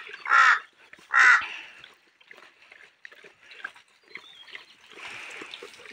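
Two loud, harsh crow caws within the first second and a half. After them come faint soft clicks and wet sounds of a Bhotia dog lapping and chewing milk and chapatis from a plastic tub.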